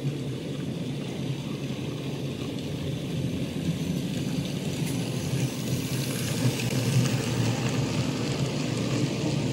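OO gauge model steam locomotive and its train of wagons running along the track: a steady rumble of the motor and wheels on the rails, growing a little louder as the train comes closer.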